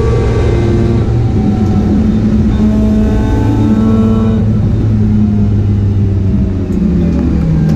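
Race-prepared Mazda RX8 engine running hard under load. Its steady note shifts pitch a few times and drops about seven seconds in.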